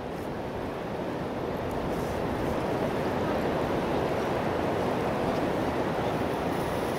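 Steady rush of wind and sea surf at the shore, slowly growing louder.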